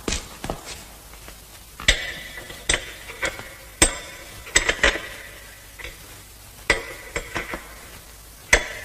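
Irregular sharp metallic clanks and rattles with a short ringing after the louder ones, as iron cell bars are gripped and shaken.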